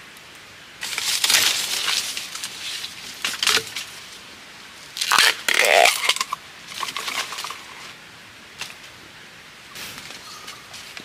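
Several bursts of crunching and crackling as dry bamboo stems and leaf litter are handled and broken, the loudest about a second in and again around five to six seconds in.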